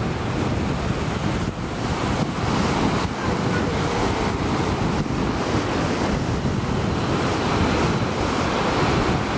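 Sea waves breaking on a beach in a steady wash of surf, with wind buffeting the microphone.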